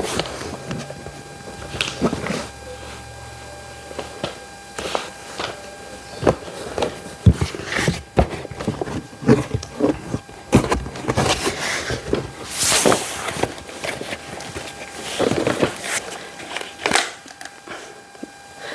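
Irregular rustling, clicks and knocks of packaging being handled as a box is unpacked, with a few louder rustles in the second half. A faint steady tone runs underneath.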